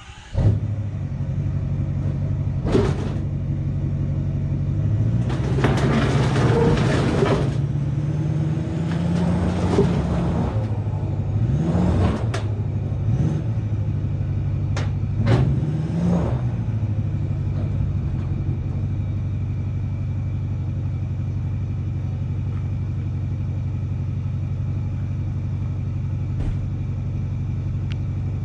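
An engine starts just after the opening, is revved up and down several times with harsh noisy bursts and a few clunks, then settles to a steady idle.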